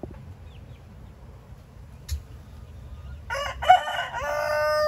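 A rooster crowing once: a long cock-a-doodle-doo that starts about three seconds in and holds its final drawn-out note to the end.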